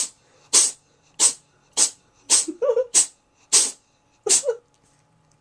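Cat sneezing hard in a rapid fit, about eight sharp sneezes in quick succession.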